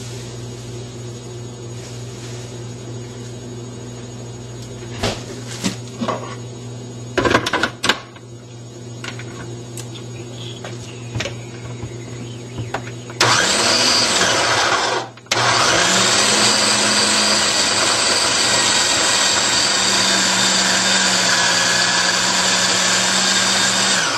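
Black & Decker food chopper's motor whirring as it blends frozen banana chunks into soft ice cream. It starts about halfway through with a rising whine, stops for a moment, then runs steadily until it cuts off at the end. Before it starts there are a few clicks and knocks of the bowl and lid being handled.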